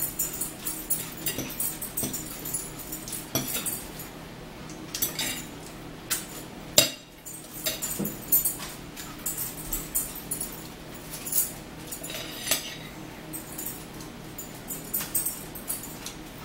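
Eating at a table: metal forks clinking and scraping on plates, with close-up chewing and mouth sounds in between. Many short sharp clicks throughout, the loudest about seven seconds in.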